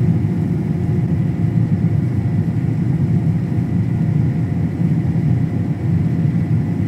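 Steady low drone of a running vehicle engine, holding an even pitch and level.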